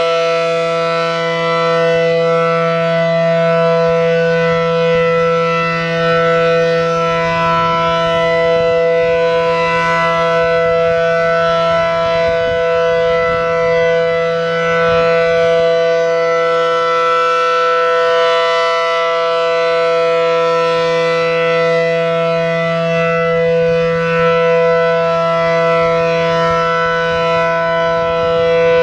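ACA Allertor 125 outdoor warning siren, reverse-wired, sounding a steady Alert tone. Its two horns give a chord of steady pitches that swells and fades as the rotating head sweeps around.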